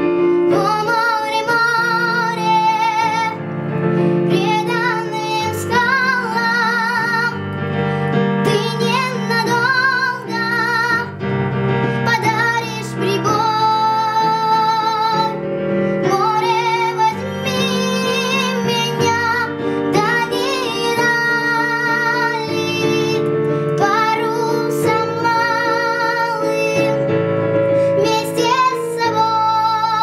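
A young girl singing a slow Russian ballad with vibrato, phrase by phrase, over sustained chords she plays on a digital piano.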